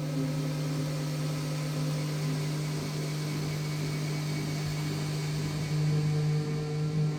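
Modular synthesizer drone from a Make Noise Strega and XAOC Drezno: a steady low tone with layered overtones over a hiss of noise, with a higher tone joining about six seconds in.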